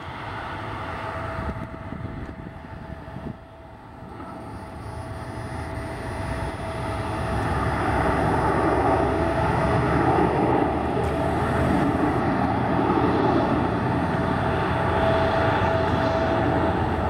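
Jet engines of a Bombardier CRJ regional jet at taxi power: a steady whine over a broad rush, growing louder over the first eight seconds or so as the jet taxis closer, then holding steady.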